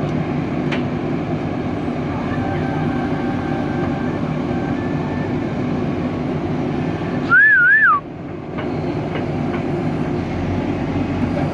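JCB 3DX backhoe loader's diesel engine running steadily. About seven seconds in, a loud whistle lasting under a second rises and falls twice over it.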